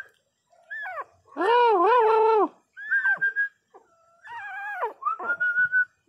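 Pinscher puppy crying: thin high whines, a falling yelp about a second in, and a longer wavering cry from about a second and a half in, the loudest, then more high whines and a short cry that falls away near the end.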